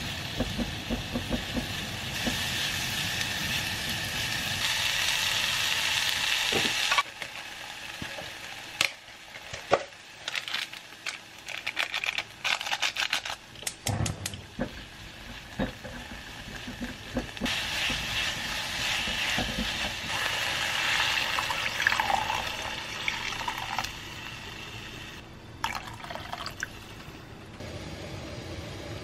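Chopped green onion, onion and garlic stir-frying in a pot, a steady sizzling hiss, stirred with long metal chopsticks. About seven seconds in the hiss drops away and a run of sharp chopstick clicks against the pot follows as seasoning is stirred in. After that a second stretch of hissing comes in.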